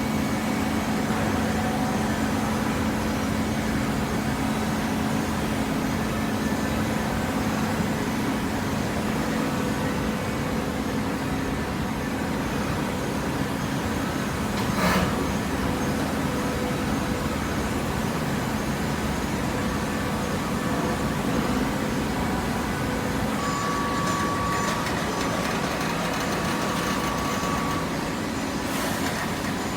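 Hydraulic paper baler's power unit running with a steady machine hum. There is a single sharp knock about halfway, and a higher whine comes in near the end.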